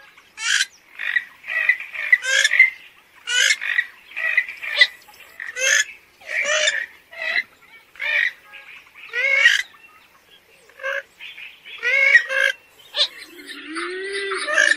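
Kalim (a Porphyrio swamphen, purple gallinule type) giving a long run of short, harsh calls at about two a second. Near the end a different, wavering and sliding sound comes in.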